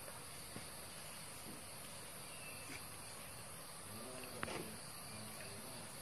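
Faint, steady high-pitched chorus of insects in the mountain forest. About four seconds in, a low voice murmurs briefly and there is a small click.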